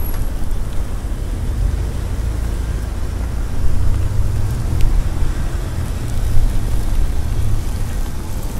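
Storm wind buffeting the phone's microphone, an uneven low rumble over a steady hiss.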